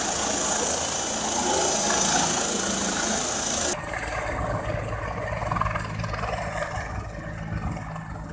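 Helicopter turbine and rotor sound in two clips: first a helicopter running on a ship's deck with a steady high turbine whine over a loud hiss, then, after an abrupt cut about 3.7 s in, a helicopter in flight with a lower, pulsing rotor beat.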